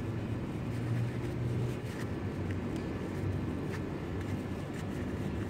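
A steady low mechanical hum, like a motor running, with a few faint light clicks.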